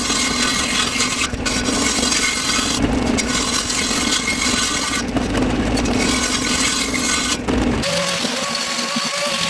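A power tool working wood, a rasping noise over a steady hum, which changes near the end to a steadier whine.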